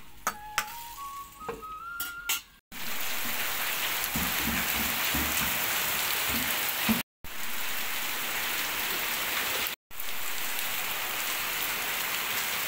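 Heavy rain pouring onto corrugated tin roofs and a waterlogged yard, a steady even hiss that drops out twice for a moment. Before the rain starts, about three seconds in, there is a soft melody with a few sharp clicks.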